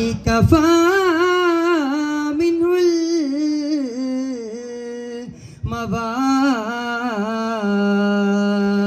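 Arabana frame drums struck in a few quick beats that stop within the first second, then a male voice sings an unaccompanied, ornamented arabana muttu melody, with a short break about halfway and a long held note near the end.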